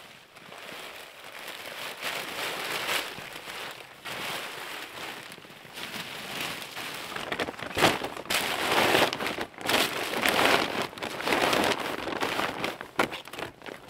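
Irregular rustling and crackling noises that grow louder from about seven seconds in, with a sharp crack about eight seconds in.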